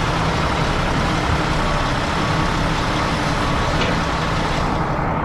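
Heavy diesel engines of an excavator and a dump truck running steadily during loading, a continuous low drone with a faint steady whine above it.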